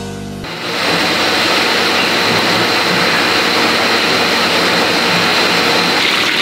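Music ends about half a second in. Then hot oil in a wok sizzles and bubbles hard in a loud, steady hiss, turning brighter near the end as a slab of pork belly deep-fries to crackling.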